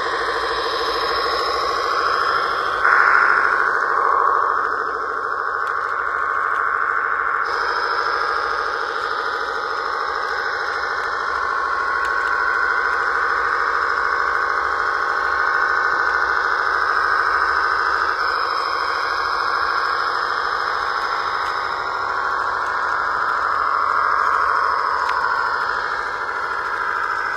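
Radio-controlled model tractor driving and pulling a disc harrow through soil: a steady electric drive motor and gearbox whine, briefly louder about three seconds in.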